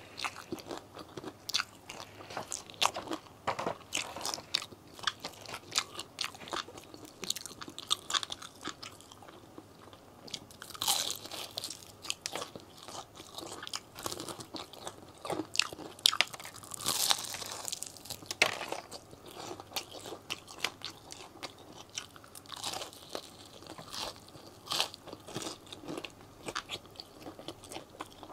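Crispy KFC fried chicken being bitten and chewed close to a clip-on microphone: irregular crunches of the breaded coating with chewing between, the loudest crunches coming around the middle.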